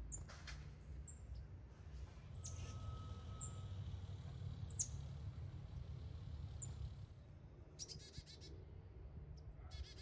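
Small songbirds calling: high, thin, down-slurred chirps several times, then two short, rapid buzzy chatters near the end, over a low steady rumble.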